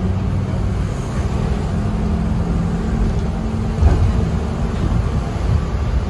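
Steady low roar of the Niagara River's American Rapids rushing toward the American Falls, with a low steady hum under it.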